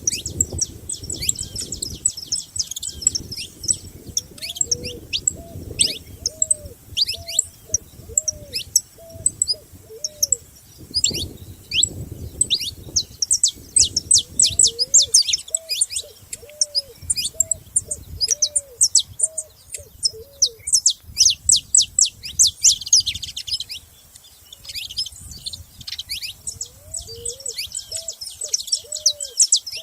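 Several saffron finches chirping, a dense run of quick, high downward-sweeping calls. Beneath them a low arched call repeats about once a second for much of the time, stopping for a few seconds before the end.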